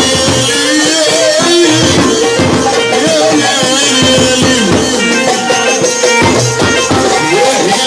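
Band playing Middle Eastern music: a melody line that bends in pitch, over a steady pattern of drum and percussion strokes.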